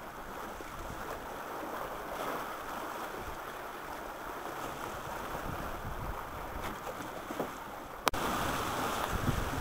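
Water rushing and splashing past the hull of a boat underway on choppy lake water, with some wind on the microphone. A sharp click comes just after eight seconds, after which the wind noise gets louder and deeper.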